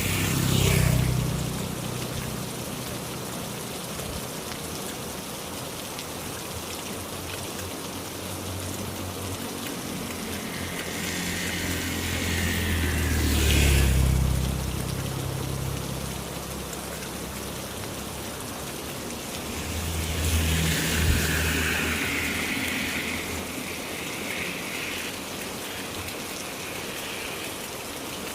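Heavy rain falling steadily on the ground and surfaces. Three times, about a second in, midway and about two-thirds of the way through, a vehicle passes, its rumble and wet-road tyre hiss swelling and fading.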